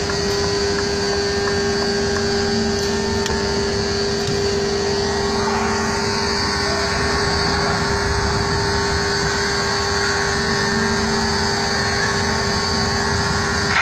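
Articulated lorry's diesel engine running close by as it moves slowly, heard as a steady, loud drone with a constant hum.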